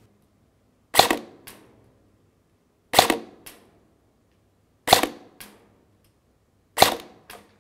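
G&P Rapid M4 airsoft electric gun (AEG) firing single semi-auto shots, four in all about two seconds apart. Each shot is followed about half a second later by a fainter click.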